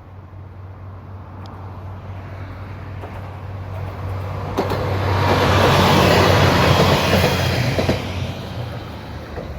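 Nagara River Railway diesel railcar passing: its engine drone grows steadily louder, peaks about halfway through as the wheels click a few times over rail joints, then fades away.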